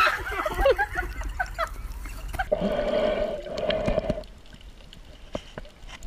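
Voices cry out briefly, then the sound turns muffled and underwater: water gurgling over a steady hum, followed by a quieter stretch with scattered sharp clicks.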